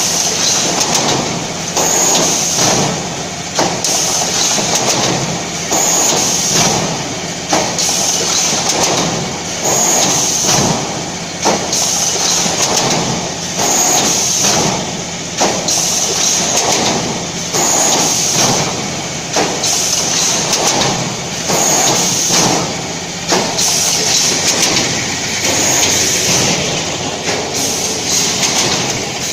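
Vertical EPS 3D panel wire mesh welding machine running in production. It works in a repeating cycle about every four seconds, each cycle opening with a brief high-pitched burst, with sharp clicks and knocks in between.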